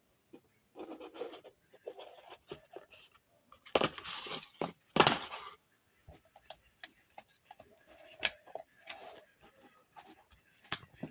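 Handling noise: scattered small clicks and taps, with a short rustle about a second in and two louder rustling scrapes about four and five seconds in, as the phone or its packaging is handled.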